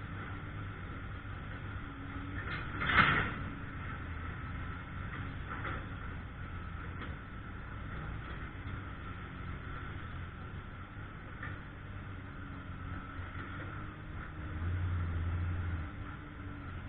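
Heavy work equipment running steadily with a low engine hum. There is a single sharp metallic clank about three seconds in, and a deeper rumble swells briefly near the end.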